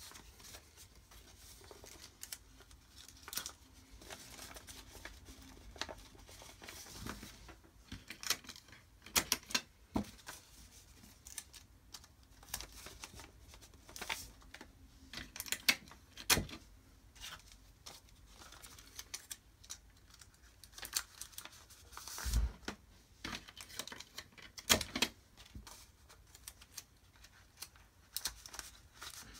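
Sheets of paper being folded, creased and handled on a wooden tabletop: irregular crisp rustles and crackles, with one dull knock about two-thirds of the way through.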